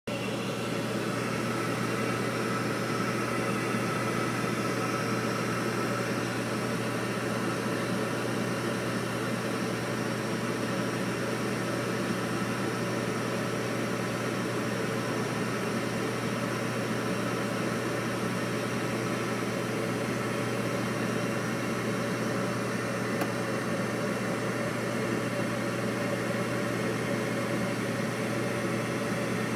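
Household furnace running steadily: a constant low hum under a wide rushing noise of the burner and blower.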